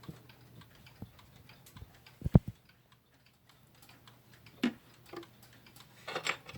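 D&A Schoolhouse regulator wall clock with a 15-day Chinese pendulum movement ticking faintly. A single low thump comes a little over two seconds in.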